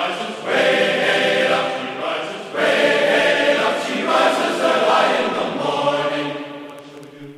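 End-card music of long-held choral chords, fading out near the end.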